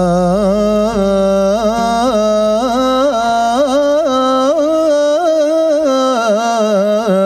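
Male singer holding one long, ornamented melisma on a single word of an Arabic praise song, the pitch wavering in quick turns and trills.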